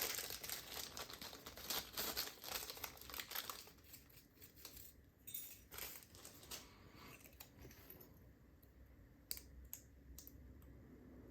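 Crinkling and rustling as a thin padlock shim is fetched and handled. The rustling is dense for the first three or four seconds, then gives way to a few scattered light clicks.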